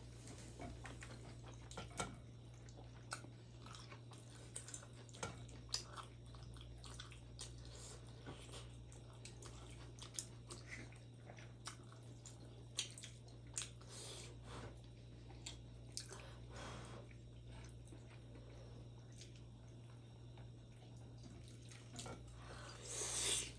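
Close-miked chewing and biting of chicken momos: soft wet mouth smacks and clicks scattered throughout, over a steady low hum. A brief louder rushing noise comes near the end.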